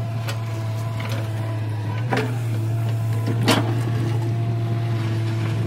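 L&T Komatsu hydraulic crawler excavator's diesel engine running steadily under load as it dumps a bucket of earth into a tipper truck and swings back to dig, with two sharp clanks, about two and three and a half seconds in, the second the louder.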